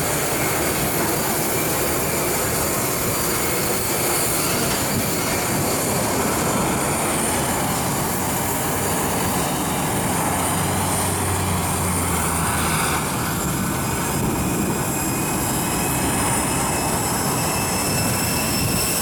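Jet aircraft engines running on an airport apron: a steady loud roar with several high-pitched whines held throughout, the whines edging up in pitch near the end. A lower engine hum joins for a few seconds about ten seconds in.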